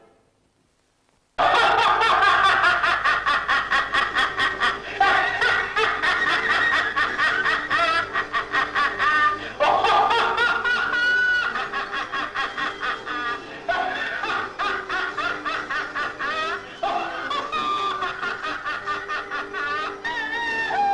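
About a second and a half of silence, then laughter and snickering in rapid, overlapping ha-ha pulses over music, running on without a break.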